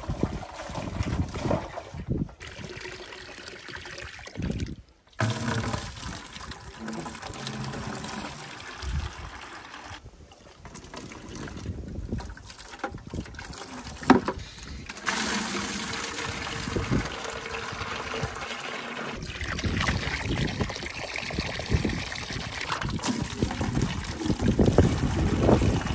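Water running from a garden hose into plastic barrels and 5-gallon buckets, splashing as they fill, broken by a few abrupt cuts. From about halfway on the splashing is louder and brighter.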